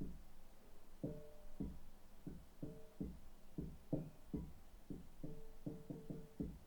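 Muffled drumming from the flat above, heard through the ceiling: about a dozen irregular strikes, several ringing with short pitched notes, that sound like a little metal drum being played.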